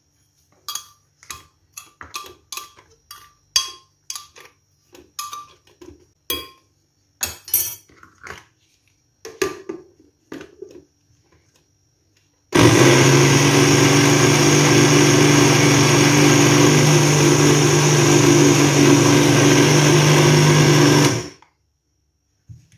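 Countertop blender grinding demerara sugar to make it finer: switched on about halfway through, it runs steadily for about eight seconds and cuts off. Before it starts, a run of light clinks and taps.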